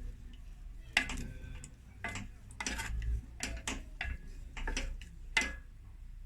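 A utensil stirring béchamel in a pot, knocking irregularly against the pan with sharp clicks about twice a second.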